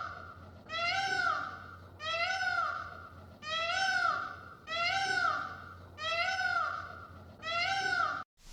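A cat meowing over and over, about once a second, each high-pitched meow rising then falling; the calls stop abruptly shortly before the end.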